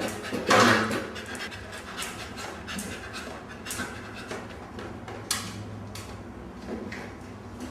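A dog panting in a run of quick breathy strokes, with a louder noisy sound about half a second in.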